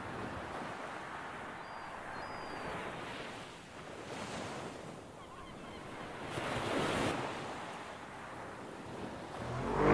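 Sea surf washing against rocks, a steady rushing hiss with a wave swelling louder about seven seconds in.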